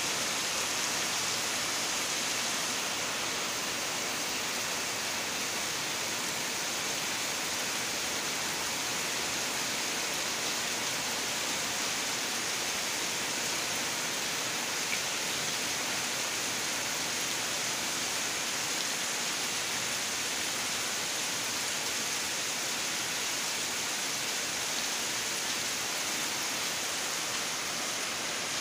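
Steady rain falling on banana leaves and dense foliage and onto a waterlogged yard.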